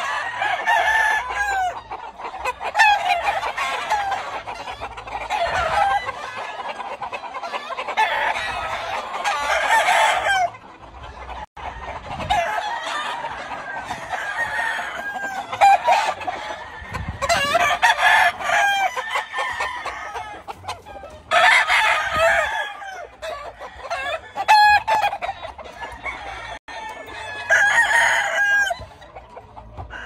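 Many gamefowl roosters crowing from their pens, one call after another and often overlapping, with louder crows every few seconds.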